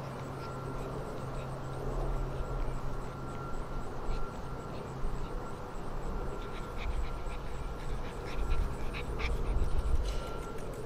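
Young Alaskan Malamute puppies playing together: scattered short yips and squeaks, more frequent in the second half, over a steady background hum.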